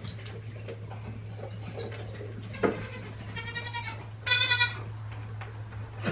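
Goats bleating: a faint bleat about two seconds in, then two clearer bleats around three and a half and four and a half seconds in, the second the loudest. A short knock sounds just before them, and a steady low hum runs underneath.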